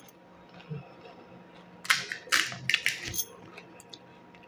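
Crisp fried golgappa shell crunching and cracking: a quick run of sharp crackles about two seconds in, lasting about a second.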